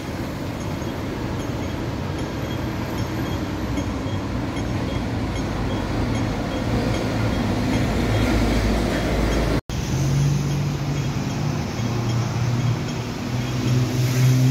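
Street traffic noise, with a heavy vehicle rumbling past and growing louder. The sound cuts off abruptly, and a steady low drone of a few held tones follows.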